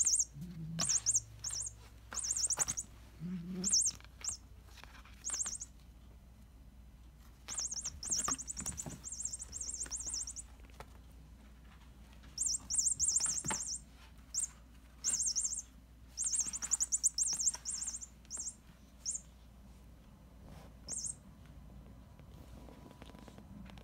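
A squirrel cat toy giving out electronic chirps in short, very rapid, high-pitched trills that come again and again in irregular bursts while a cat bats and bites it. Soft knocks and rustles from the cat's play sound between the chirps.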